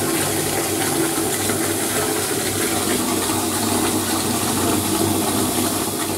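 Bathtub tap running into the tub, a steady rush of water filling the bath.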